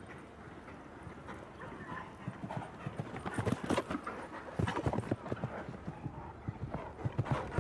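Hoofbeats of a show-jumping horse cantering on a grass arena, getting louder about halfway through.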